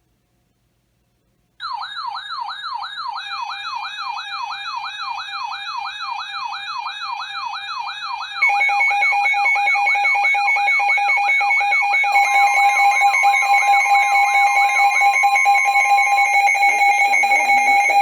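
Electronic siren wailing up and down quickly, several sweeps a second, starting about a second and a half in. About halfway through, a louder steady alarm tone joins, the siren fades out, and the steady tone holds to the end.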